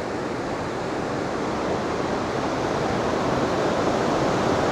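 Waterfall rushing as a steady roar of falling water, growing slowly louder.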